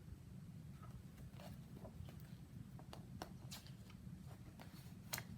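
Faint clicks and rustles of a picture book's pages being handled and turned, over a steady low room hum.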